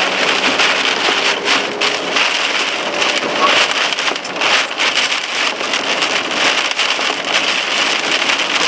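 Heavy rain pelting a vehicle during a severe thunderstorm: a dense, steady hiss full of small drop impacts.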